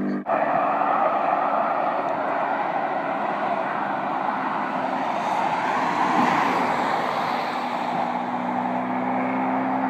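A car on the road approaching and passing: a steady rush of engine and tyre noise that swells slightly about six seconds in.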